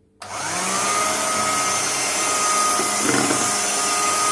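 Electric hand mixer switched on just after the start, its motor whining quickly up to speed and then running steadily as the beaters whisk runny egg cake batter with melted butter.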